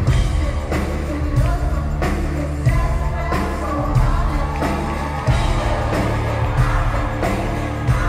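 Live pop-rock band: a woman singing over drums, bass and keyboards, with regular drum hits, recorded from the audience in an arena hall.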